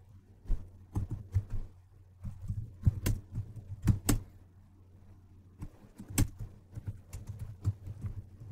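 Typing on a computer keyboard: irregular key clicks, pausing for about a second midway, over a low steady hum.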